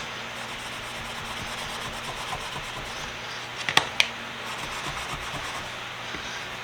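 A 1x30 belt sander running while a small steel pipe wrench is held against the belt for a final clean-up, a steady rubbing hiss over the motor's hum. Two sharp clicks come close together about four seconds in.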